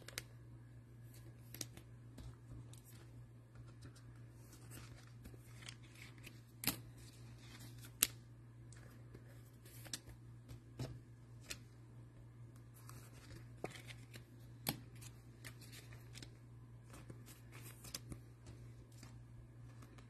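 Faint scattered clicks and light rustles of small objects being handled, over a steady low hum.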